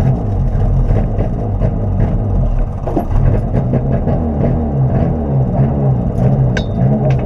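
Peugeot 106 rally car's four-cylinder engine idling unevenly inside the cabin, its pitch wavering up and down about three times a second, with scattered light ticks.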